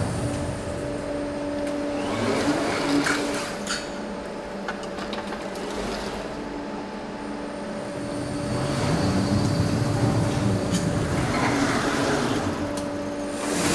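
Underground mechanical bicycle-parking machine running as it carries a bicycle through its storage: a steady motor hum with a whine, and a few clicks and clanks from the mechanism.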